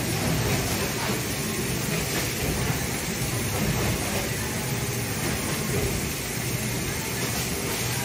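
Packaging-line conveyor and its machinery running: a steady, even mechanical noise with no clear single knocks or changes.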